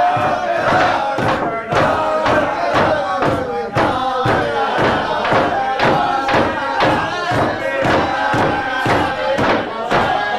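A roomful of people singing and chanting together, with a steady beat of rhythmic clapping or thumping under the voices.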